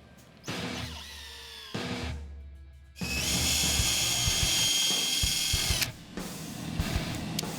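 Power drill running steadily at high speed for about three seconds, starting about three seconds in and stopping just before six, with background music around it.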